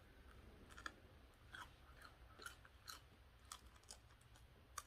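Faint chewing of crispy fried chicken wings: a string of short, soft crunches and mouth clicks, roughly two a second.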